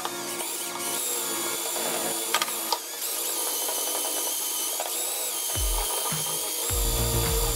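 Hitachi cordless drill spinning a wool buffing wheel against a plastic headlight lens, a steady motor whine that dips in pitch briefly as the wheel is pressed on. Background music plays along, its bass coming in a little past halfway.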